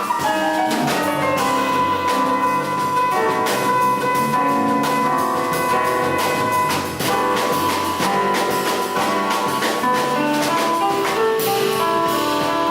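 Jazz piano trio improvising: piano notes over a drum kit with steady cymbal strokes and bass.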